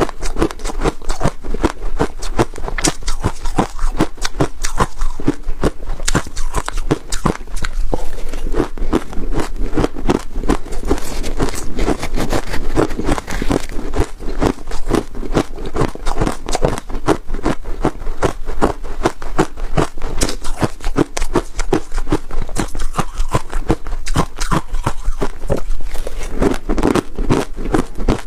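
Close-up crunching and chewing of freezer frost ice: a rapid, unbroken run of crisp crunches.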